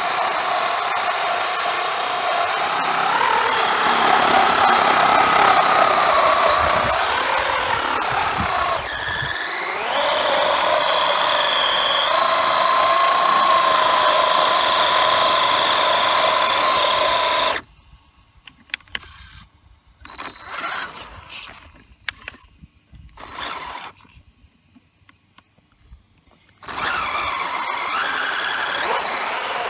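Brushless electric motor and drivetrain of a Maverick Strada SC RC short course truck whining at high revs, its rear wheels spinning in place on loose gravel while the front wheels are locked for a burnout. The whine sags and recovers about nine seconds in. A little past halfway it cuts off suddenly, comes back only in short blips of throttle for several seconds, then runs steadily again near the end.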